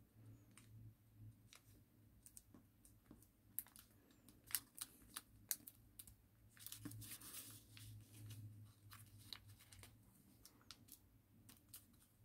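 Faint rustling and scattered sharp clicks of origami paper being folded and creased by hand, with a longer rustle about seven seconds in, over a low steady hum.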